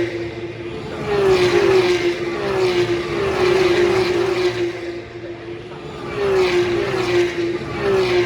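BTCC touring cars passing one after another, the engine note of each dropping in pitch as it goes by.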